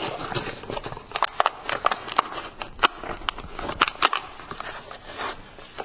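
Laundry detergent being measured out and handled: an irregular run of sharp crackles and clicks.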